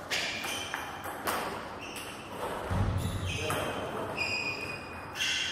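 Table tennis rally: the ball clicking sharply off the bats and the table in turn, several hits in a row, each with a short ringing ping.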